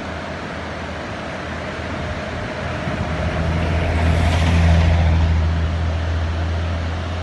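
Motor vehicle running with steady road noise; a low engine hum grows to its loudest about halfway through, then fades.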